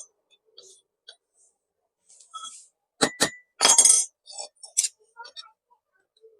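Hammer tapping a screwdriver used as a drift to seat a new bush bearing in a mixer grinder motor housing. Two sharp, ringing metal taps come about three seconds in, followed by a louder metallic clatter, with light clinks of the tools being handled in between.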